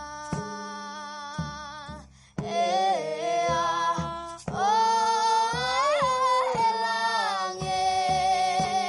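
A woman sings long, slowly gliding held notes over a steady low drone, with light percussive knocks scattered through. It starts soft, then gets louder from about two seconds in.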